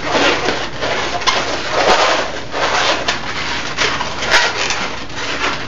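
Inflated 260 latex modelling balloons rubbing and squeaking against each other as they are twisted into a loop and worked into a woven balloon sculpture, in a string of scratchy swells.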